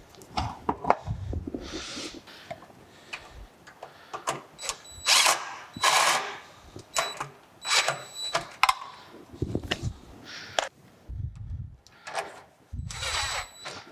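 Cordless drill/driver running in several short whining bursts, driving bolts that mount a steel electrical box to the lathe frame, with knocks and clanks of the metal box and hardware being handled in between.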